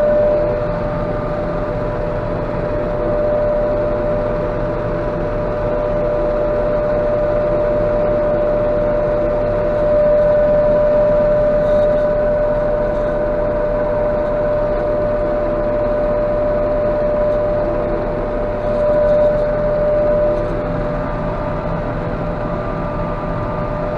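Claas Jaguar 830 self-propelled forage harvester working, heard from inside the cab: a steady machine drone with a strong high whine held at one pitch, swelling slightly about ten seconds in and again near the end, as it picks up and chops a grass windrow.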